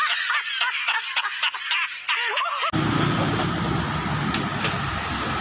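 A burst of rapid, high-pitched laughter, a meme sound effect, cut off abruptly about two and a half seconds in by a motorcycle engine running steadily, with two short clicks near the end.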